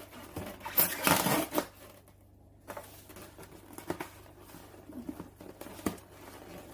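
Knife cutting open a styrofoam box, with tearing and crinkling, loudest in a burst about a second in, then scattered light scrapes and clicks.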